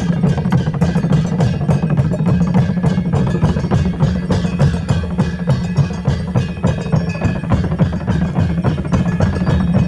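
Himachali deity-procession band music: drums beaten in a fast, steady rhythm with clanging metal percussion, over a held wind tone.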